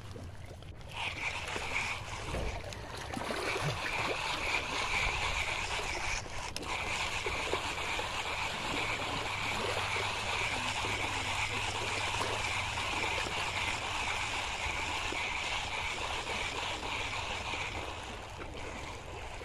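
Sea water washing against a rocky shore, with a steady high-pitched drone over it from about a second in until near the end.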